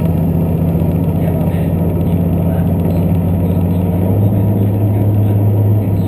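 A diesel express train heard from inside the carriage: a steady low engine drone over the running noise of the train, its note changing about four seconds in.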